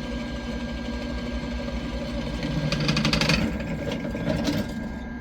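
Drill press motor running steadily while a 9/32-inch bit drills into a nut. About two and a half seconds in, the cutting gets louder with a rapid chatter for about a second, then flares briefly again near the end.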